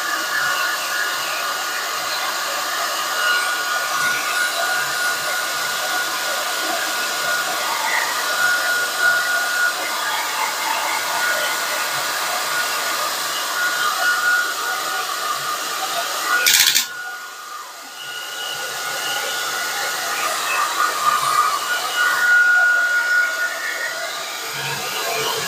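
Electric hair dryer blowing steadily over a wet watercolour painting to dry the paint. About two-thirds of the way in there is a click, and the sound drops for a moment and then builds back up.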